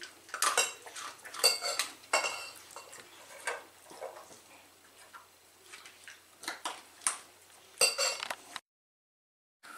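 A small dog eating from a stainless steel bowl: the metal bowl clinks and rings irregularly as it is nudged, about a dozen sharp clanks, then the sound breaks off to silence near the end.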